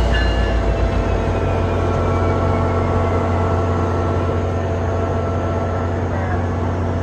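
MPI MP32PH-Q diesel-electric locomotive standing at the platform with its diesel engine running, a steady low hum with a few steady tones above it. A faint high squeal slides downward and fades over the first few seconds.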